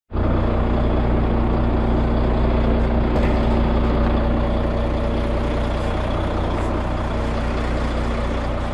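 Volvo FH12 truck's diesel engine running steadily, a constant low hum with a steady droning tone.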